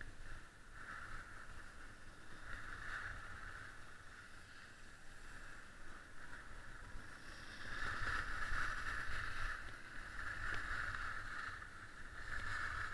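Skis sliding and scraping over packed snow, the hiss swelling and fading with each turn and loudest about eight seconds in, over a low wind rumble on the microphone.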